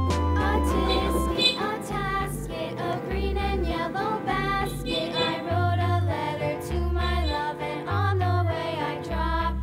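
Background music: a song with a singing voice over a bass line that changes note about every half second.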